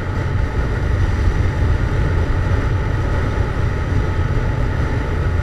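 Yamaha MT-07 motorcycle under way at a steady speed, its parallel-twin engine running through a Jeskap GP aftermarket exhaust as a steady low rumble, with no revving.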